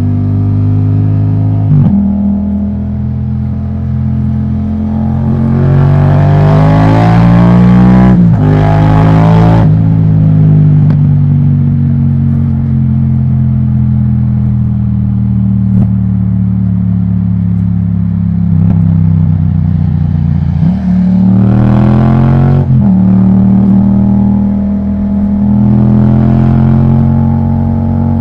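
2018 Yamaha MT-07's crossplane parallel-twin engine through an Akrapovic titanium exhaust, running under way. The revs climb twice, around six to eight seconds in and again around twenty-one seconds in, each time dropping sharply at a gear change.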